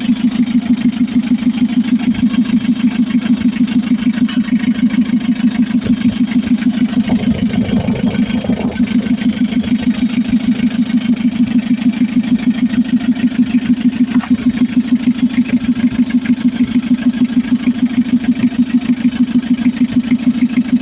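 Mitsubishi L300 FB's diesel engine idling steadily with an even pulsing beat, running after its hard-starting fault was cured with a new fuel feed pump.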